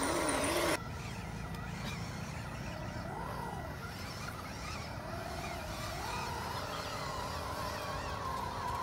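Electric motor and gearbox whine of a scale RC crawler truck driving through mud, rising and falling with the throttle: it swells and drops about three seconds in, then climbs again about six seconds in and holds. A louder stretch with a lower whine cuts off abruptly under a second in.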